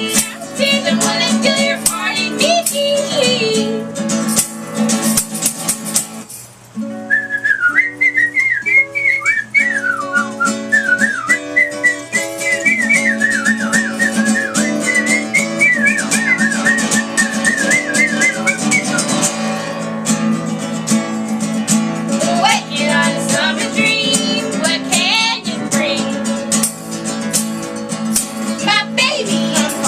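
Live acoustic folk song: acoustic guitar picking under sung vocals, then a long whistled melody over the guitar for about twelve seconds, after which the singing returns.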